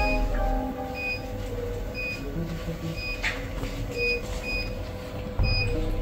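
Medical equipment beeping: short, high electronic beeps repeating about once or twice a second, over a steady low hum and a few faint clicks.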